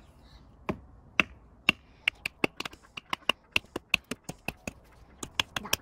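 Wooden baton striking the spine of a knife driven into a small log to split it (batoning). It makes a run of about two dozen light, sharp taps, about two a second at first, then quickening to four or five a second.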